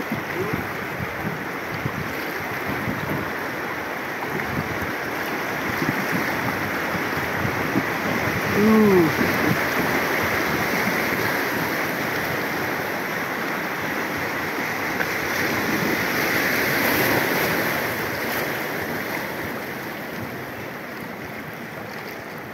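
Rushing white water of river rapids around a small wooden boat, a steady noise that eases off over the last few seconds as the river calms. A short voice call about nine seconds in is the loudest moment.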